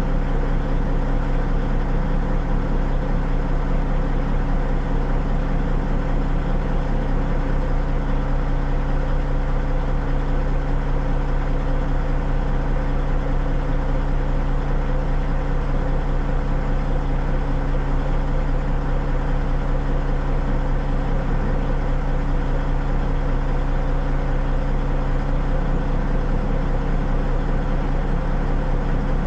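Narrow-gauge steam locomotive standing still, giving off a steady mechanical hum with a low drone that does not change.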